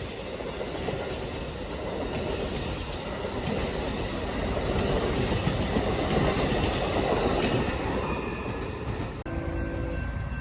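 A train passing at speed, its rumble and wheel clatter on the rails building to a peak and then easing off. The sound cuts off abruptly near the end.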